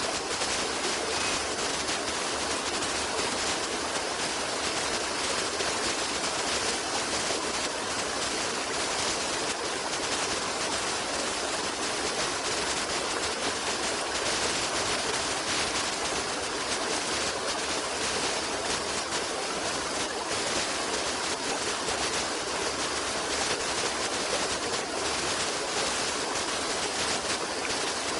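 Rushing, splashing water from a stream, a steady even rush with no break.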